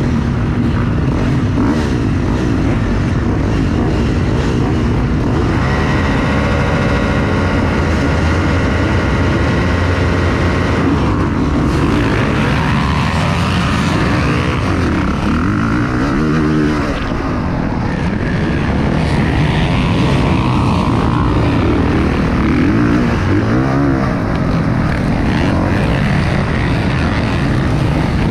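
Honda CRF450 dirt bike's single-cylinder four-stroke engine, with other motocross bikes around it, held at steady revs at the start gate, then racing off. Its pitch climbs and drops as it accelerates and shifts.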